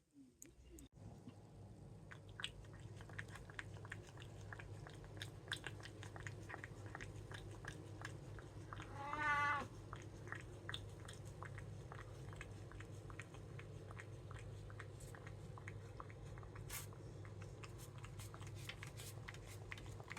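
A cat chewing and biting its food, a steady run of small wet clicks and crunches over a low hum, with one short wavering cat cry about nine seconds in.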